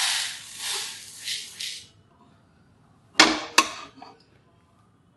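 Dry-roasted horse gram seeds poured from a stainless steel kadai onto a plastic plate, a loud rattling rush that fades out about two seconds in. A little over three seconds in, the steel pan knocks twice, sharply, as it is set down on the gas stove.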